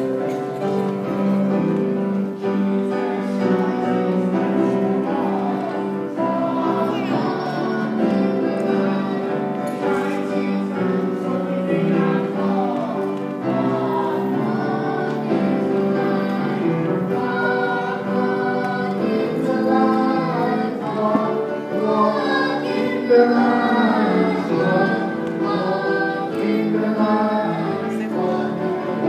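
Church choir singing a hymn over steady held accompaniment notes.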